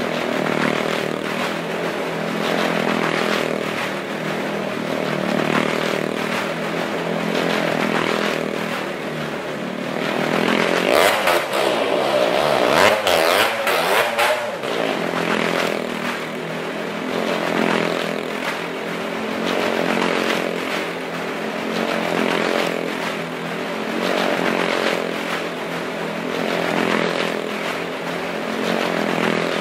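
Motorcycles riding the wall-of-death drum: engines running continuously, the sound swelling and fading about every two seconds as the bikes lap around. Near the middle there is a louder stretch of revving.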